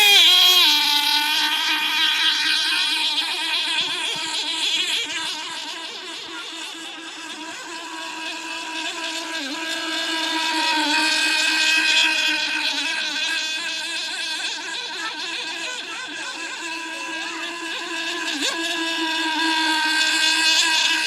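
Nitro-engined RC vee-hull boat running at speed on the water: a steady, high-pitched engine whine. It fades as the boat moves away and grows louder again as it comes back.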